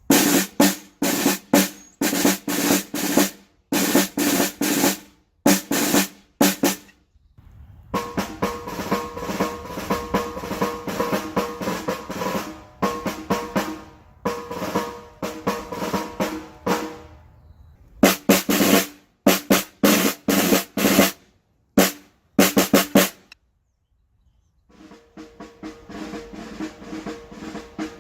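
Snare drum tapping out Morse code: groups of single strokes and short rolls separated by pauses, with loud passages alternating with fainter ones.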